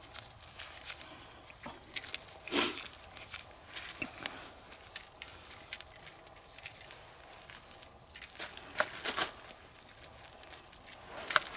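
Hands handling a plastic bag and a gear-oil pump hose at an outboard's lower gearcase drain hole: light crinkling and scattered small clicks and rustles. A few louder crackles come about two and a half seconds in, around nine seconds, and just before the end.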